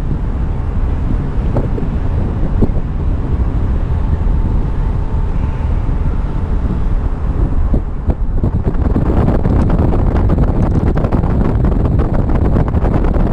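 Wind buffeting the microphone in a loud, steady rumble, with scattered light clicks from hand tools and fittings being handled.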